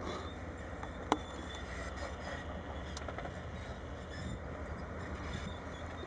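Excavator diesel engines running with a steady low rumble, with one sharp knock about a second in.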